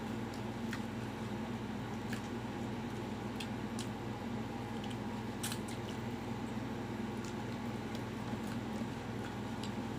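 Close-up eating sounds: chewing breaded fried chicken fillet and shredded cabbage, with scattered short crunching clicks over a steady low background hum.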